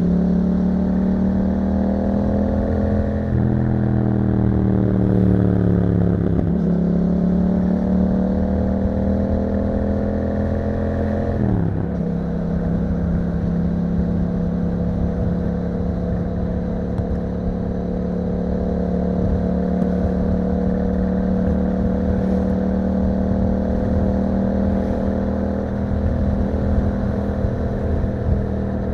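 Yamaha MT-07's parallel-twin engine through an Akrapovič exhaust, riding on the road. The engine pitch changes sharply a few times in the first twelve seconds or so with gear changes, then holds a steady cruise.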